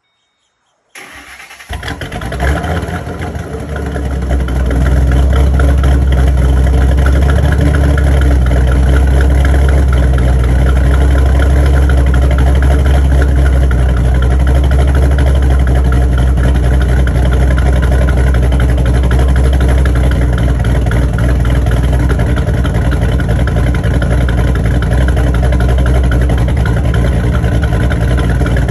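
Cammed Ford Mustang's 4.6-litre three-valve V8 with a Pypes axle-back exhaust starting about a second in, catching, and settling within a few seconds into a loud, steady idle with a deep exhaust rumble.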